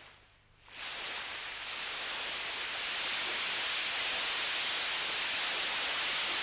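Steady rushing hiss that swells in about a second in and then holds even.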